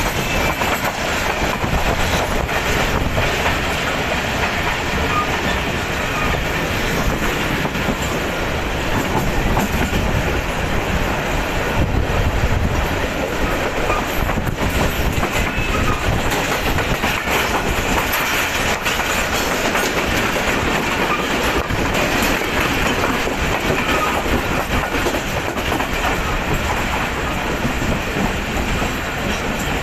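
Passenger train coaches running along the track, heard from an open coach doorway: a steady rumble of wheels on rails with the clickety-clack of rail joints passing under the wheels.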